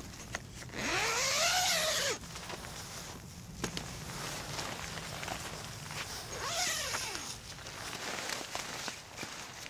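Zipper on a Sabbatical Arnica tent's door being pulled in two long runs, about a second in and again between six and seven seconds. Each run sweeps up and then back down in pitch with the speed of the pull, and the door fabric rustles as it is pulled back.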